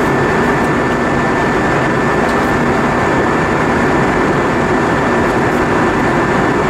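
Steady cabin noise of an Airbus A320-232 in flight: an even rush of airflow over the fuselage mixed with the drone of its IAE V2500 turbofan engines, with a faint steady high whine.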